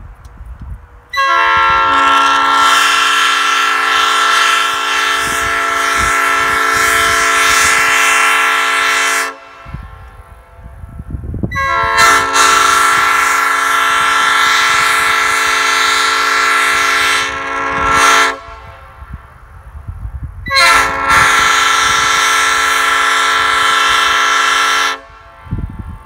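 3D-printed PETG replica of a Nathan Airchime P5 five-chime train horn (bells 1, 2, 3, 4 and 5) blowing on 120 psi air: three long, loud chord blasts of about eight, six and four seconds, each starting and cutting off sharply.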